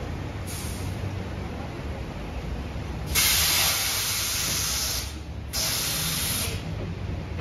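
Compressed air hissing from the pneumatic air system of a vintage R33/R36 subway train, over a low steady rumble. There is a faint short puff about half a second in, then a loud hiss of about two seconds, and a second loud hiss of about a second shortly after.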